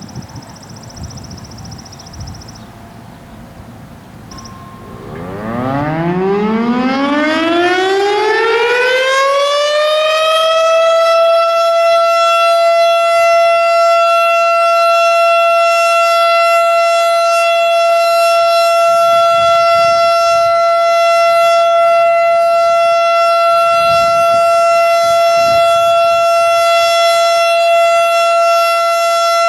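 Federal Signal STH-10 three-phase outdoor warning siren winding up about five seconds in. Its single tone rises from a low pitch to a high one over about five seconds, then holds steady: the siren's Alert signal, a continuous steady tone.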